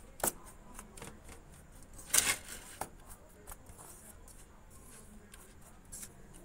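A spoon scraping and clicking against a steel bowl while stirring dry sattu filling, in scattered irregular strokes, the loudest about two seconds in.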